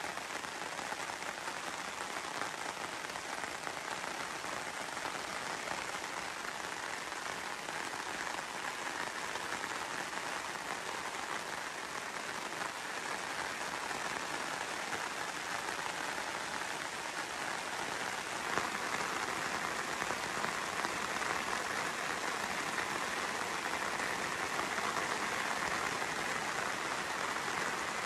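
Steady rain falling on the tarp overhead and the surrounding grass, growing a little heavier in the second half.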